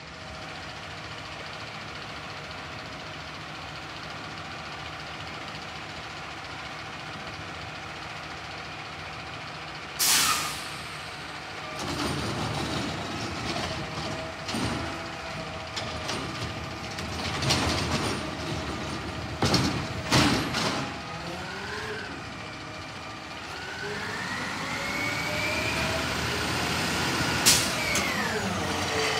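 Diesel engine of a McNeilus automated side-loader garbage truck running steadily, with a sudden sharp hiss of air brakes about ten seconds in and again near the end. Between them come several loud knocks and bangs from the truck at work, and later the engine revs up with a rising whine as the truck pulls forward.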